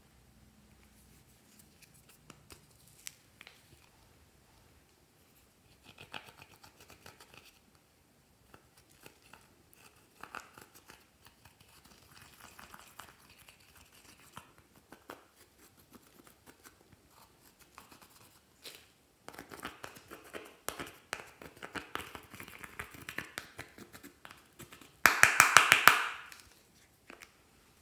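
Close-up handling sounds of an eyeshadow palette being emptied: an applicator scrapes and scratches the pressed powder out of the plastic palette, in short bursts that grow busier. Near the end comes a brief, loud run of rapid knocks as the upturned palette is tapped over the tray.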